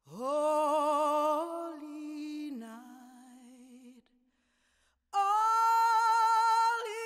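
A single voice singing long held notes with vibrato, unaccompanied. A short phrase of a few notes fades out about four seconds in, and after a pause of about a second another held note begins and shifts pitch near the end.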